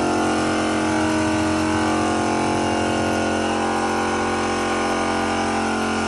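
Pressure washer running steadily: an unchanging motor-and-pump hum under the hiss of the water jet.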